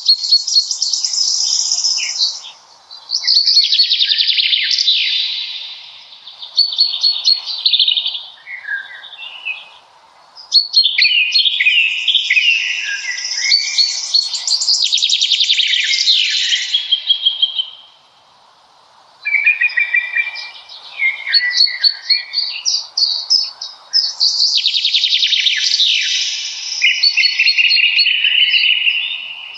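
Songbirds singing in a spring birch forest: long, fast, intricate phrases of several seconds each, broken by short pauses, with a faint wash of other sound beneath.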